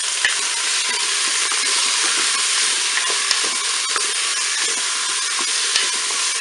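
Beef chunks and onions sizzling in hot oil in the bowl of a Cookeo electric multicooker on its browning setting. A wooden spoon stirs them and knocks lightly against the bowl a few times.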